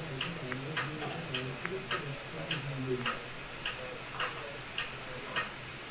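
Bottled ale being poured into a pint glass, a low uneven glugging, under a steady clock tick that comes a little under twice a second.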